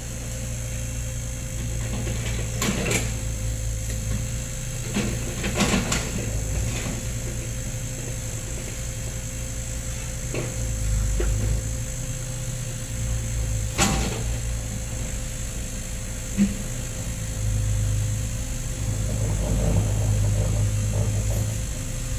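Komatsu PC30 mini excavator's diesel engine running steadily, with a few sharp knocks now and then. The engine grows louder for a few seconds near the end.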